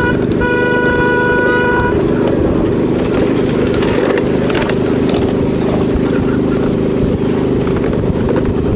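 Riding a miniature railroad train: the train's horn gives a short toot, then a longer steady blast that stops about two seconds in. Under it the locomotive's engine drones steadily, with the rattle and clicking of the cars running over the small-gauge track.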